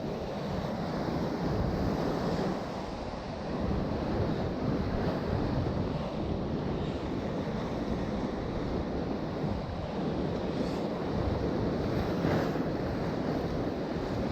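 Sea surf washing in a steady noise, with wind buffeting the microphone.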